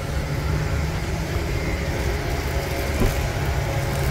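Steady low drone of an idling engine.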